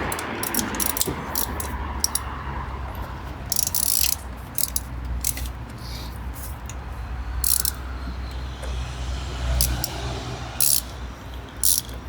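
Irregular clicks and knocks of a ratchet and 32 mm socket working a tight cap loose on the BMW B58 engine during an oil change, over a low steady hum.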